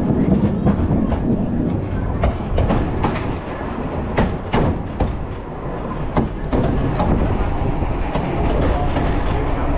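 Tram 66 running along its track: a steady rumble of wheels on rails, with several sharp clicks and knocks as the wheels pass over rail joints.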